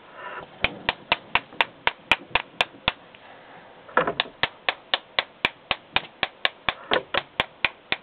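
Small bump hammer tapping the head of a bump key in a Master padlock, sharp taps at about four a second in two runs with a one-second break near the middle. Each tap jolts the lock's pin tumblers while a tension wrench turns the plug: lock bumping.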